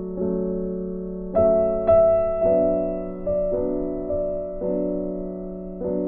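Background music: a slow, gentle piano piece, with notes and chords struck roughly once a second and left to fade.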